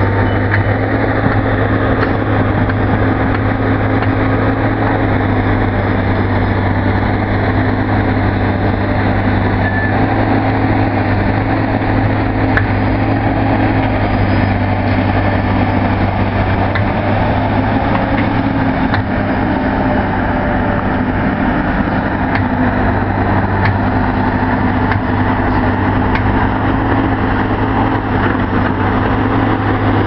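Heavy engine running steadily with a constant low hum, its pitch holding nearly level throughout.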